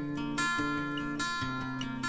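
Background music: acoustic guitar playing chords, changing about once a second.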